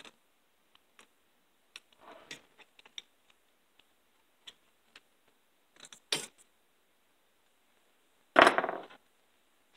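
Small metal clicks and taps from snap-ring pliers working the snap ring onto a Craftsman 1/2-inch drive ratchet head held in a vise. There is a sharper click about six seconds in and a loud metallic clatter a little past eight seconds, as the pliers give trouble.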